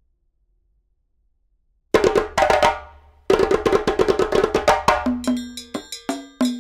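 Silence, then percussive background music starts about two seconds in: sharp wood-block and drum-like hits, a short break, then a steady rhythm of pitched hits about three a second.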